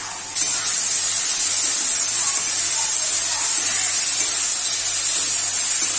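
Potatoes and tomatoes frying in hot oil in a kadai, sizzling steadily while they are stirred. The sizzle jumps sharply louder just after the start, as ground ginger paste goes into the pan.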